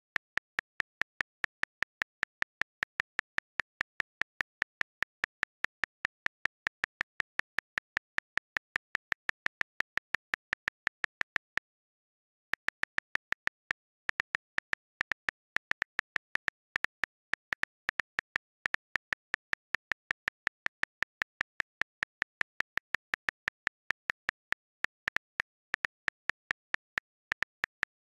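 A calculator button pressed over and over, each press a short sharp click, about five clicks a second, with a brief pause about twelve seconds in.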